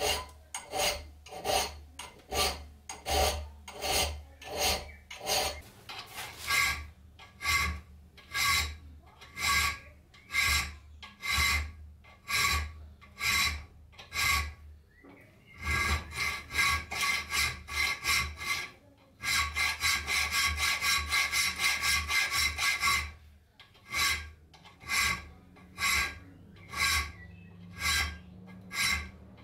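Hand filing with a round file, rasping back and forth across a hardened steel knife blade held in a vise to cut small notches along the spine. The strokes come about two a second, each with a faint metallic ring. About two-thirds through they quicken into a rapid run of short strokes for a few seconds, then slow again.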